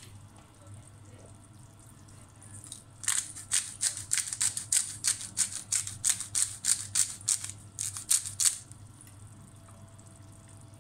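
Pepper grinder being twisted over a bowl of minced meat: a quick run of short gritty grinding strokes, about four a second. They start a few seconds in and stop near the end.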